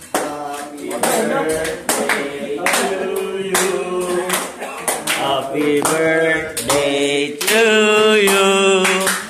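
A group of men singing together with hand clapping.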